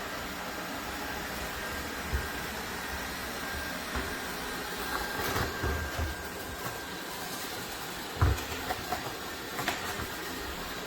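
DeenKee DK700 robot vacuum running in its smart cleaning mode: a steady suction hum with a faint high whine, and several short knocks and bumps, the loudest about 8 seconds in.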